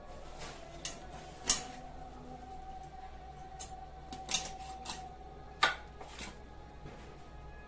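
Raw duck being cut apart by hand on a boti (a curved floor blade) over a steel bowl: scattered sharp clicks and knocks of blade, bone and metal bowl, with three louder knocks spread through.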